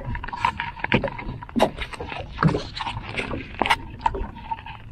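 Water lapping and slapping against the hull of a small wooden fishing boat, with irregular short knocks and splashes.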